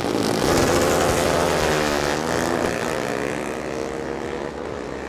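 Drag-racing motorcycle engines launching at full throttle. Their pitch dips and climbs again about two seconds in, then the sound slowly fades as the bikes pull away down the strip.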